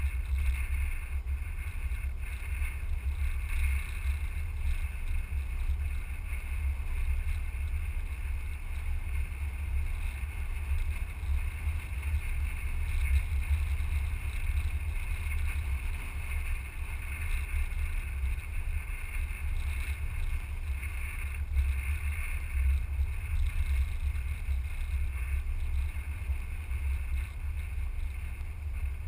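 A vehicle driving along an unpaved gravel road: a steady low rumble of wind buffeting the microphone outside the vehicle, with road and tyre noise under it.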